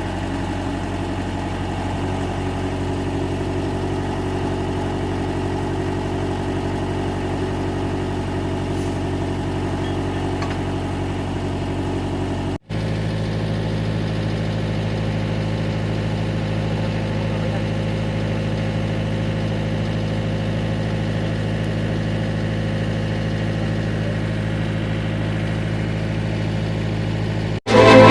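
Mitsubishi MS030 backhoe's diesel engine running steadily at idle. The sound cuts out for an instant about 13 seconds in and again just before the end, then carries on with a slightly different tone.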